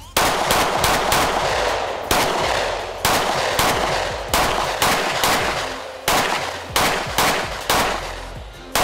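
Springfield Armory XDM Elite 3.8 compact pistol being fired in quick strings: about eighteen loud, sharp shots in pairs and small groups with short pauses between them.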